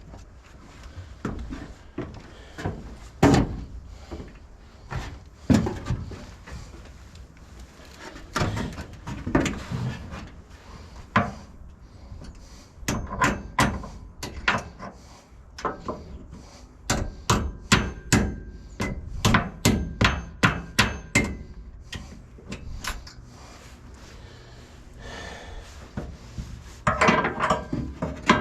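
Repeated metal knocks and strikes on a stubborn front piece of a fifth wheel hitch as it is worked into place on the bed rails, with scattered blows at first, then a quick run of about two to three strikes a second in the middle, some with a short metallic ring.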